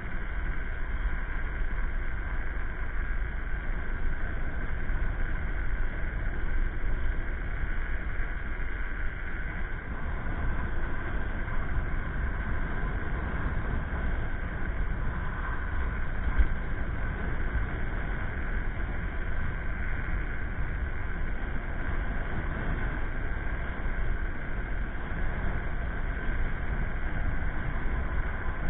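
Steady low rumble of a moving electric scooter ride: wind buffeting the camera microphone, with tyre and road noise underneath. A single louder knock comes a little past the middle.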